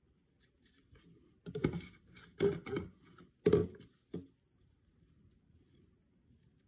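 A quick run of sharp clicks and knocks, like small objects being handled and set down on a tabletop, clustered between about one and a half and four seconds in.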